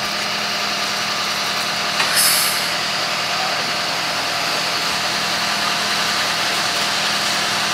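Flatbed tow truck's engine running steadily while a car with a flat tire is winched up onto its bed, with a short hiss about two seconds in.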